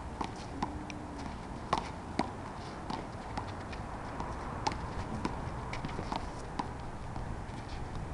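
Rubber handball in a one-wall handball rally: a string of sharp, irregular smacks as it is struck by hand and rebounds off a concrete wall and the asphalt court, over steady background noise.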